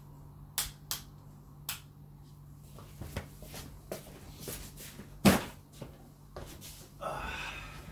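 Scattered light clicks and knocks of a person moving about a small room, with one sharper knock about five seconds in and a short rustle near the end.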